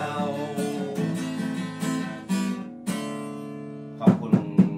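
Acoustic guitar strummed and picked, ending on a chord that rings out and fades about three seconds in. Near the end a man's short, sharp chuckles come in, the loudest sounds here.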